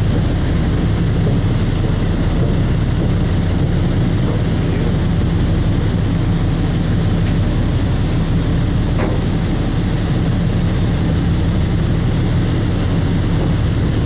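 A boat's engine running steadily: a low, even drone with a noisy hiss over it.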